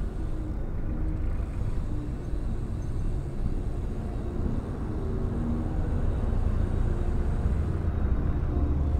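Road traffic: engines of nearby vehicles running in a steady low rumble, growing slightly louder in the second half.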